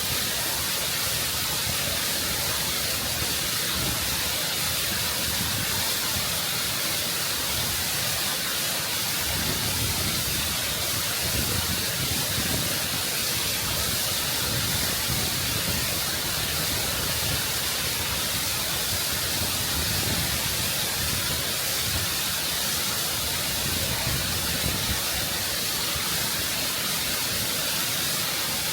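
Waterfall close up, water cascading over rock in a constant, full rush of white noise.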